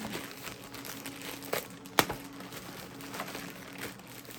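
Packaging crinkling and rustling as new tools are unboxed and handled, with scattered light clicks and one sharp click about two seconds in.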